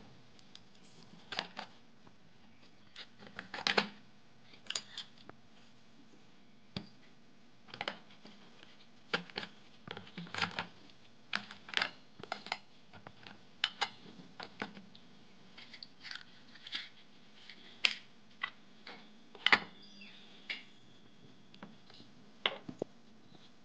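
Small stainless-steel tins being set down one by one into a plastic bucket: irregular clicks and knocks of metal against metal and plastic, a few of them sharp and loud.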